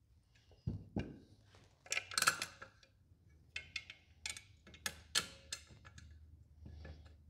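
Irregular small metallic clicks, taps and scrapes of screws and lock washers being handled and fitted into a can crusher's metal frame, with a few louder scrapes about two seconds in and again around the middle.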